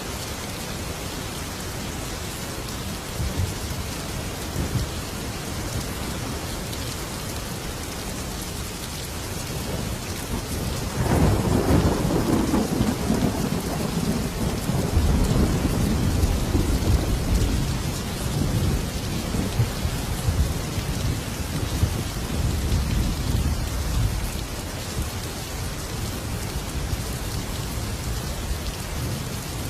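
Steady heavy rain falling, with a long rolling peal of thunder that breaks in about a third of the way through, rumbles for over ten seconds and dies away.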